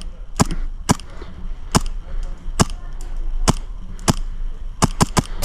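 Airsoft replica gun firing single shots, each a sharp pop or click, irregularly spaced about half a second to a second apart, with three quick shots near the end.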